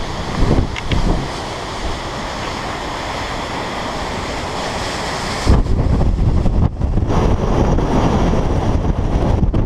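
Strong wind blowing, with the wind buffeting the microphone. About halfway through it turns louder and gustier, with a heavier low rumble on the mic.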